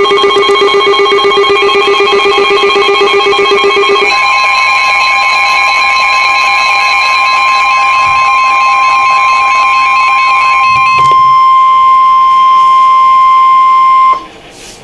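Emergency Alert System alert tones: several beeping and warbling alert tones layered together, then a single steady high tone, the weather-radio warning alarm, which cuts off sharply near the end.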